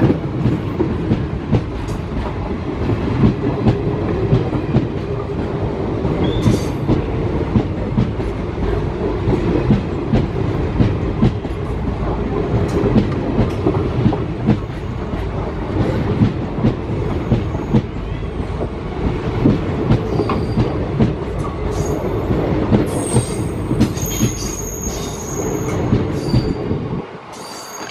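ICF passenger coaches of an express train passing close by at speed, their wheels clattering over the rails in a steady rhythm. High squeals come in near the end, and the noise drops suddenly as the last coach, the luggage van, goes past.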